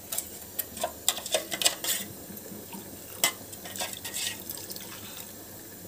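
Water poured from a steel mixer jar into a pot of curry, a thin trickle of rinse water carrying the last of the ground masala. Scattered short clinks and taps of metal are heard throughout.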